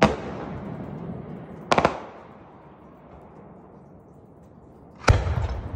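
Aerial firework shells bursting in the sky: a sharp bang at the start, a quick run of three or four cracks a little under two seconds in, and another bang about five seconds in. Each is followed by a fading echo.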